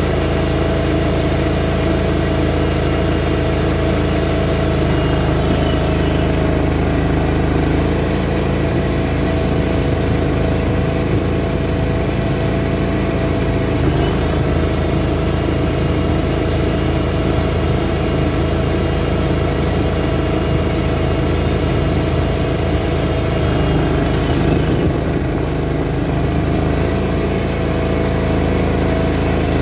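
Greens mower's small petrol engine running steadily while mowing, its note shifting slightly a few times.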